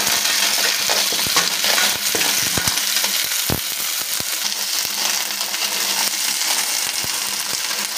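Small clams (halaan) sizzling loudly in hot oil in a wok with garlic, onion and ginger, just after being added, with scattered clicks as they are stirred.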